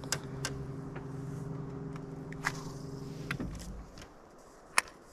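Electric trolling motor humming steadily, then cutting off about three and a half seconds in. A few light clicks sound over it, and there is one sharp click near the end.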